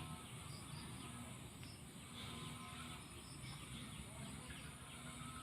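Spotted doves cooing faintly in short low phrases, over a steady high-pitched insect drone.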